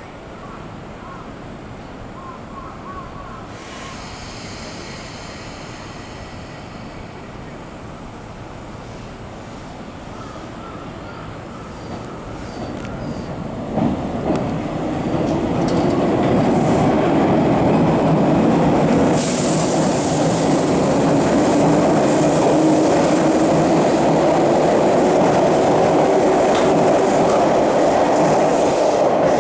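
Tobu Skytree Line electric train running, its rumble growing much louder about halfway through. As it gets louder, a low tone rises slowly in pitch and a hiss joins it.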